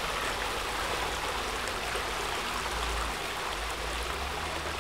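Creek water running over rocks: a steady, even rush of flowing water.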